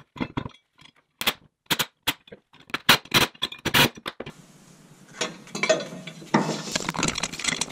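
Sharp metal clicks and clinks as bolts and nuts are fitted loosely into a steel air-spring mounting bracket. About four seconds in, a steady hiss comes up with more knocks and rattles as the bracket is worked into place under the truck.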